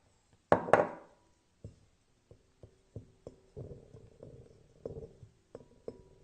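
Slime being pressed and squished by hand, making sharp popping clicks and short squelchy sounds. Two loud pops about half a second in, then a run of smaller pops and squishes, a couple each second.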